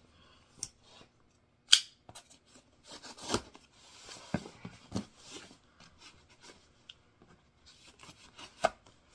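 A knife scraping and slitting the packing tape along the top seams of a cardboard shipping box, with scratchy rubbing of the blade. Scattered sharp knocks and taps come from the box being handled, the loudest just before two seconds in.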